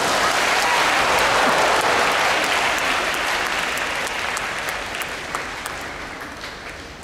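Arena crowd applauding in reaction to a sumo wrestler being pushed out and falling off the ring. The applause swells at once and fades away over the last few seconds.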